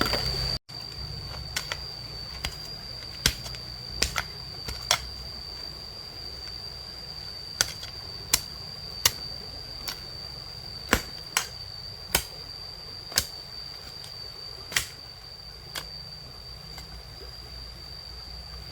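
A steady high-pitched insect drone, with about seventeen sharp, irregular knocks from a tool striking soil and stones while digging for earthworms.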